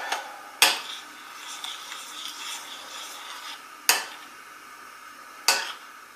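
Metal spoon stirring a thick cooked custard of milk, egg yolk and sugar in a glass bowl, stirred as it cools so no skin forms: a soft scraping along the glass, broken by three sharp clinks of the spoon against the bowl.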